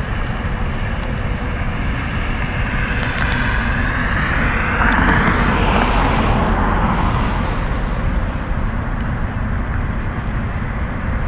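A motor vehicle passing on the road: its noise swells to a peak about five seconds in and fades away again, over a steady low rumble of traffic.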